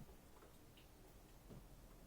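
Near silence: room tone with a few faint ticks.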